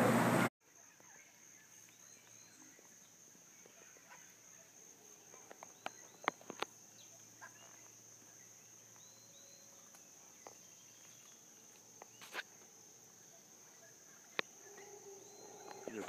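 Quiet tropical field ambience after the interview sound cuts off about half a second in. It holds a steady high insect trill of a cricket or katydid, with a few short, faint bird chips and calls scattered through it.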